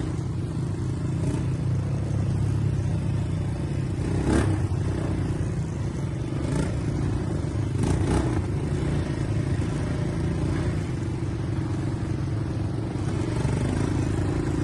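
ATV engine running steadily while riding, with a few sharp knocks or rattles about four, six and a half and eight seconds in.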